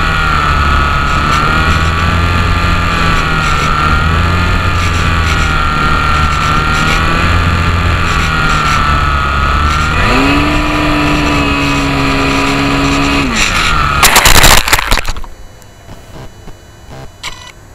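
HobbyZone Champ RC plane's electric motor and propeller whining, with wind rush, recorded from the plane itself; the whine wavers in pitch and a lower steady tone joins about ten seconds in. About fourteen seconds in there is a loud, short scraping crash as the plane hits the asphalt, and the motor noise stops.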